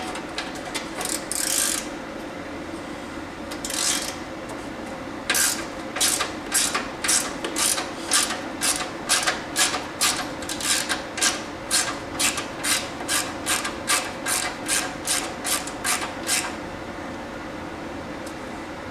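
Hand filing, rasping back and forth: a few scattered strokes at first, then from about five seconds in an even run of about two strokes a second that stops near the end.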